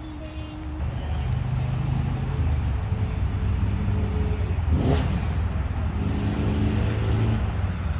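A car running on the road, with steady low engine and road rumble and engine tones shifting in pitch. A brief rush of noise comes about five seconds in.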